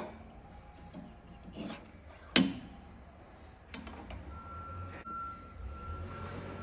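Steel spacer rings slid down a spindle moulder's shaft by hand, with a few light metallic knocks and one sharp clink about two and a half seconds in as a spacer seats on the cutter block.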